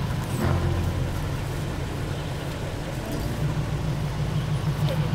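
Vehicle engine running, a steady low rumble.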